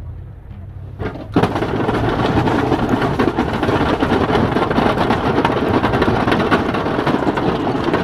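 Snow plow blade on a pickup truck scraping and pushing snow across the pavement as the truck drives forward, over the low running of the truck's engine. The scraping starts suddenly about a second in and stays loud and steady.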